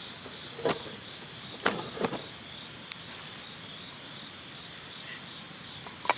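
Insects chirping steadily in a high, even drone, with a few short knocks and clicks from something being handled close by.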